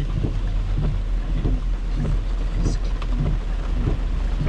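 Heavy rain on a moving car, heard from inside the cabin over the car's steady low rumble, with the windshield wipers sweeping.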